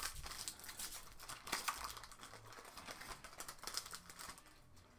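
Foil wrapper of a Magic: The Gathering booster pack crinkling as it is torn and pulled apart by hand, dying down near the end.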